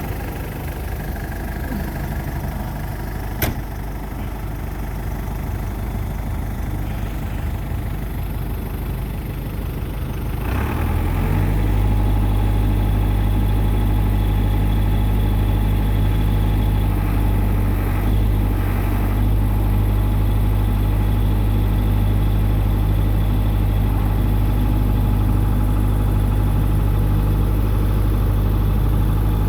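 New Holland LB75 backhoe's diesel engine idling, then throttled up about ten seconds in and running steadily at higher speed for digging. A single sharp click about three seconds in.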